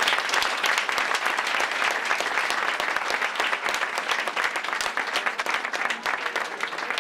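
Audience applauding steadily, easing off a little toward the end.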